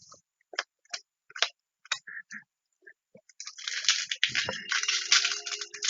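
A few light taps and clicks, then, about three and a half seconds in, a foil trading-card booster pack wrapper crinkling and being torn open.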